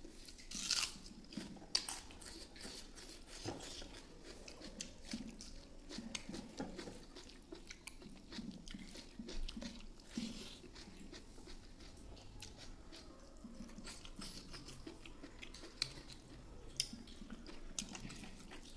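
A person chewing a mouthful of rice and beef innards close to the microphone: a continuous run of wet smacking and clicking mouth sounds, with a few sharper clicks here and there.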